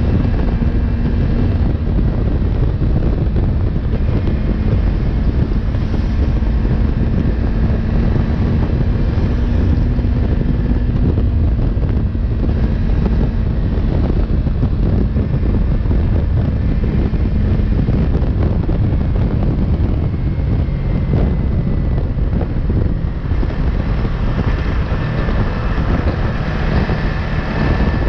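Wind rushing over a GoPro's microphone on a Yamaha MT-03 at highway speed, with the motorcycle's engine running steadily beneath it.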